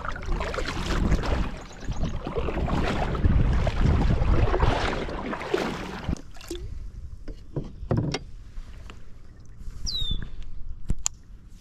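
Kayak being paddled: the paddle blades splash and swish through the water, loud and continuous for the first half, then quieter. A few sharp knocks follow in the second half.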